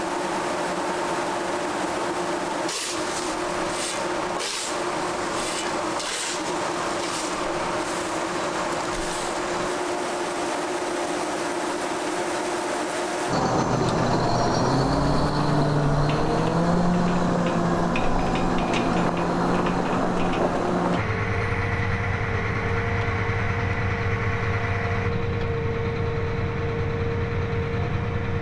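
A steady machine hum with a series of sharp knocks a few seconds in. Then a big diesel tractor engine revs up and settles into steady running with a high whine over its drone.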